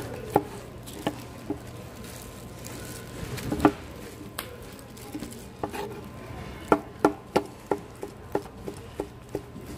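A knife chopping on a cutting board: a few separate knocks, then a quick run of about ten chops, about three a second, in the second half.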